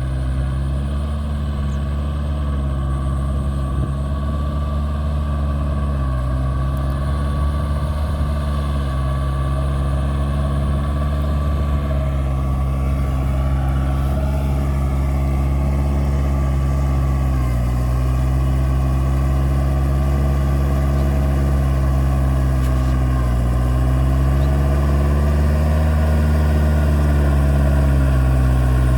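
Kioti DK4510 tractor's diesel engine running steadily, its speed dipping briefly and recovering a few times, as when it takes load.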